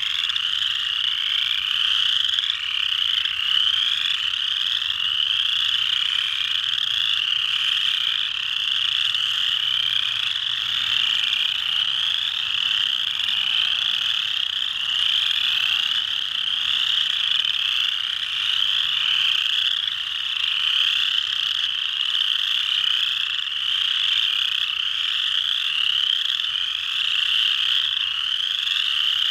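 Chorus frogs (Pseudacris) calling in a dense, unbroken chorus: many overlapping calls, each a short rising trill like a fingernail run along a comb, repeated over and over.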